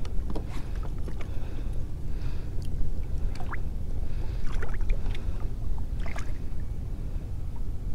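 Small splashes and sloshing of shallow water beside a kayak as a red drum held by the tail is revived, with a few sharper splashes in the second half. A steady low rumble runs underneath.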